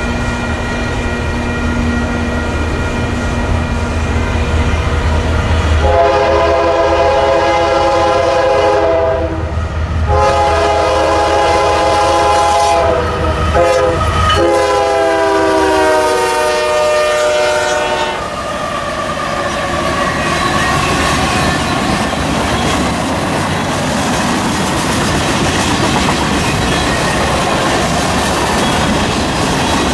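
An approaching freight train led by a Union Pacific GE ES44AC diesel-electric locomotive rumbles in, then the locomotive sounds its air horn in three long blasts with short gaps, the last one dropping in pitch as the locomotive passes. Freight cars then roll by with steady wheel noise and clickety-clack over the rail joints.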